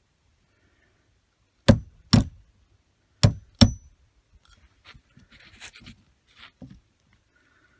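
Hot-water pipes knocking as they heat and expand: four sharp knocks in two pairs, each with a faint brief metallic ring, followed by softer scattered ticks.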